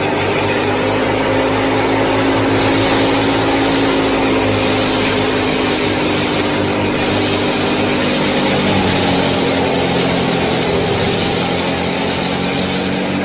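Steady engine-like drone of the miniature tractor-and-thresher rig running: a low hum with several held tones that drift slightly in pitch, and a hiss above that swells and fades every few seconds.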